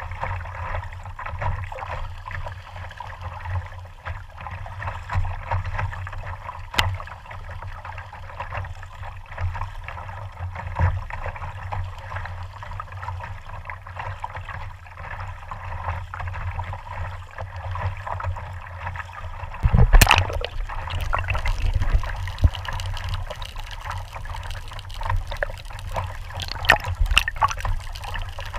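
Sea water lapping and gurgling against a kayak-mounted action camera sitting at the waterline, with many small splashes and one louder splash about two-thirds of the way through.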